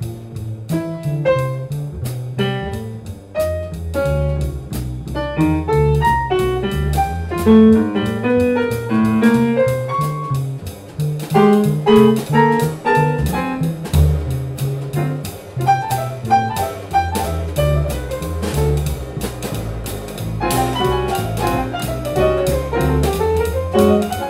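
Live free-jazz improvisation: piano playing quick runs of notes over double bass and a drum kit with frequent cymbal and drum strokes, with a descending run of notes near the end.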